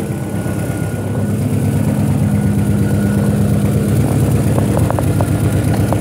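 Honda H22A DOHC four-cylinder engine idling steadily, picked up close to the engine block. A few light clicks sound over it about two-thirds of the way through.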